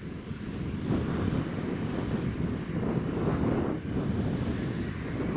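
Airliner engines growing steadily louder as the aircraft approaches, a dense rushing noise with a faint high whine above it.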